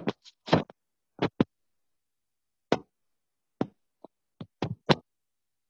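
Irregular short knocks and taps, about ten of them, from a phone being handled and propped up, heard through the phone's own microphone.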